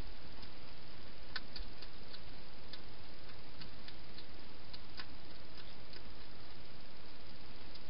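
A hedgehog chewing food from a feeding bowl: scattered, irregular crisp clicks over a steady background hiss.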